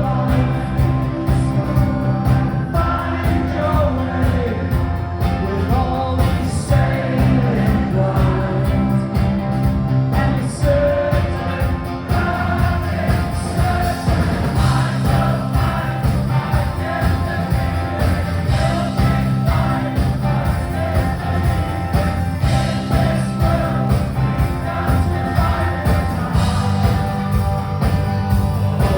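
Live rock band playing a song with singing over guitars and a steady drum beat.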